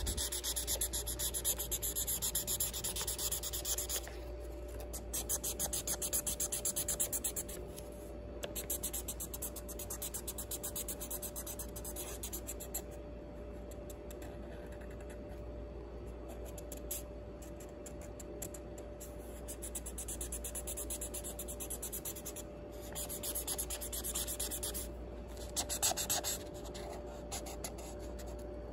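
Felt-tip marker rubbing back and forth on notebook paper in quick coloring strokes, in spells that stop and start several times. The strokes are loudest in the first few seconds.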